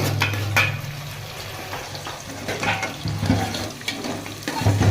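Cashews and raisins sizzling as they fry in hot ghee in a pot, with a few sharp clicks of a spoon against the pot near the start, over a steady low hum.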